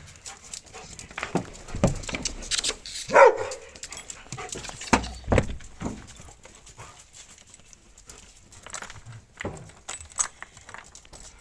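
A dog vocalizing impatiently, eager to be let out: short whines and 'talking' noises, with one louder call about three seconds in, among scattered clicks and knocks.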